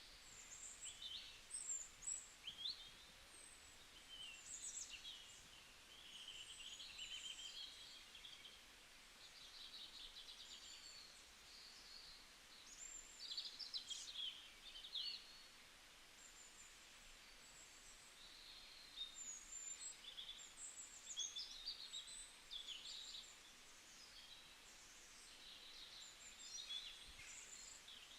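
Small birds chirping, with many short high calls and quick trills coming in irregular bunches over faint background hiss.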